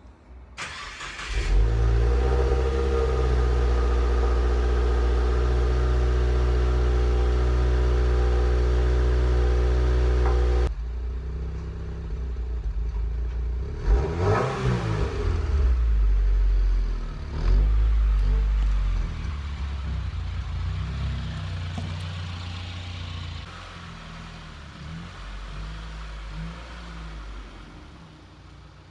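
Subaru's turbocharged boxer-four starting up about a second in and idling steadily through its quad-tip exhaust, with one short rev partway through; the engine then idles on more quietly, fading toward the end.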